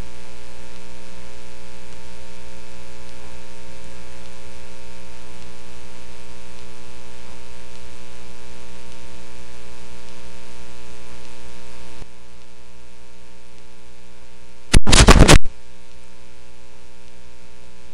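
Steady electrical mains hum with many buzzing overtones, dropping slightly in level about twelve seconds in. A brief, loud burst of noise cuts in about fifteen seconds in.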